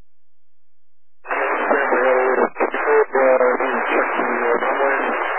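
Air traffic control VHF radio: after about a second of silence, a static-filled transmission opens, with a voice buried in the hiss and hard to make out.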